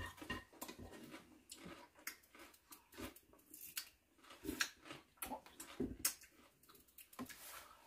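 Faint eating sounds: a spoon tapping and scraping in a metal pot, with slurps and chewing of pumpkin porridge as scattered short clicks and smacks.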